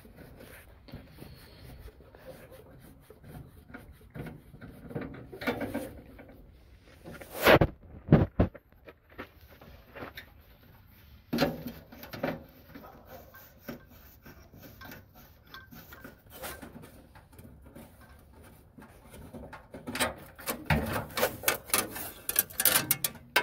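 Scattered clicks, knocks and rubbing of hands and tools working among a tractor's engine parts. There are two sharp, loud knocks about eight seconds in and a quick run of clicks near the end.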